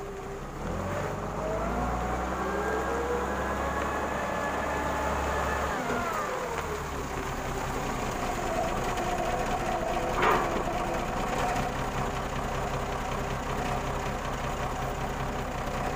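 Forklift engine revving up, holding its pitch for a few seconds, then winding back down about six seconds in, over a steady engine hum. A single short sharp sound about ten seconds in.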